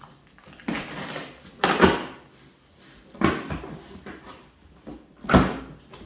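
Cardboard bicycle box being opened by hand: the flaps are torn and pulled open in four short rasping bursts, the loudest near the end.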